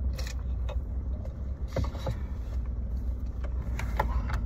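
Low, steady rumble of a car idling, heard from inside the cabin, with a few light clicks and taps.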